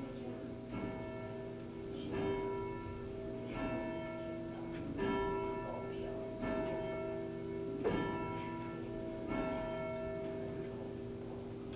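A bell tolling at a slow, even pace: seven strokes about one and a half seconds apart, each ringing on into the next.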